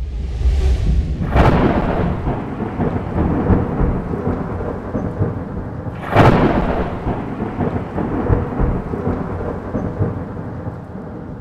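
Dramatic outro sound effects: a rising whoosh, then two heavy booms about five seconds apart, each trailing into a long thunder-like rumble that slowly fades.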